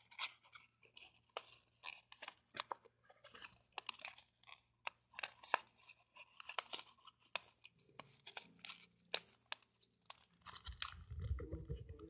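Paper crackling and crinkling as it is folded and creased by hand: many short, sharp crackles. A low rumble joins near the end.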